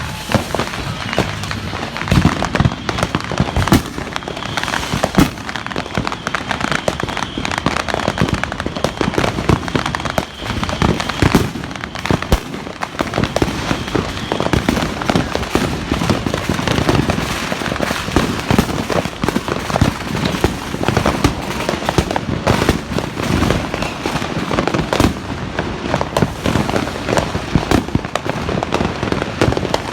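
Fireworks and firecrackers going off nonstop all around, a dense run of bangs, pops and crackling with no pause between them.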